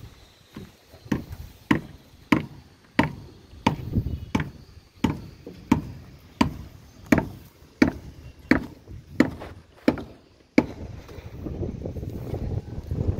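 A steady series of sharp knocks, about three every two seconds, on the roof slab's centring work. A little over ten seconds in they stop and a low rushing noise takes over.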